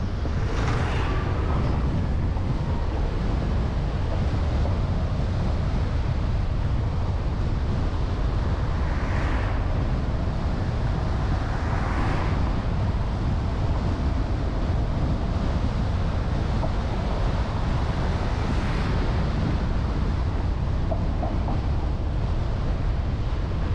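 Steady low rumble of outdoor street ambience, with four brief hissing swells, about a second in, twice around the middle and once more later.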